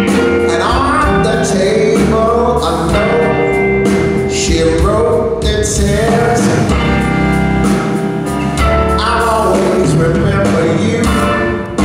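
Live blues-soul band playing a slow song: an electric guitar lead with bending notes over keyboards, electric bass and drums.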